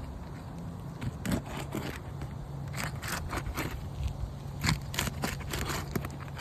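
Roofing pry bar working under asphalt shingles, breaking their sealant strips with irregular crackling, snapping clicks and scraping. A steady low hum runs underneath.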